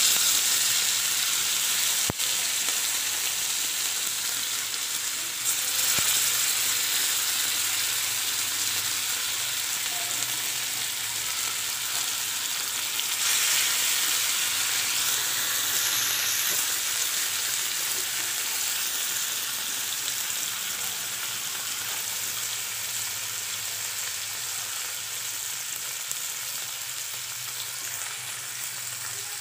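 Masala-coated Indian mackerel shallow-frying in hot oil on a flat iron tawa, a steady spitting sizzle. It swells again about six and about thirteen seconds in as more fish are laid in, then slowly dies down as the fish cook.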